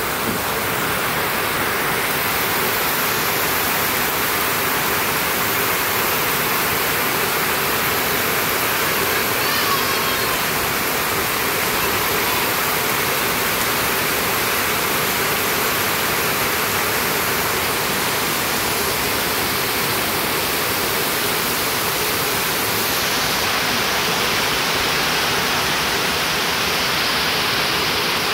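Heavy rain falling steadily: a continuous, even rush of water noise.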